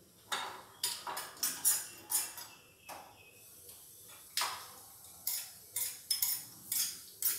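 Metal spoon stirring and scraping in a small pan as broken cashews roast in ghee on a gas burner: a run of irregular scrapes and clinks, two or three a second, pausing briefly just after the midpoint before starting again.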